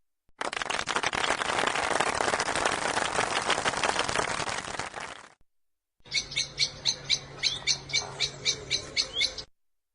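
Two short clips: first about five seconds of dense, rapid chatter, then, after a brief gap, a bird chirping quickly, about three high chirps a second, over a low steady hum, cut off suddenly near the end.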